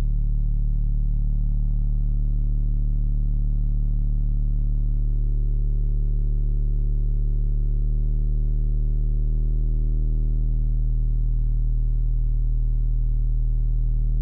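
Car audio subwoofers, four 12s, two 15s and an 18, playing a steady, loud, low bass test tone with overtones, heard from inside the car's cabin.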